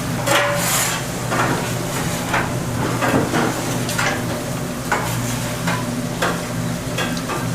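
Food sizzling on a hot grill while a metal utensil scrapes and clinks against it about once a second, over a steady low hum.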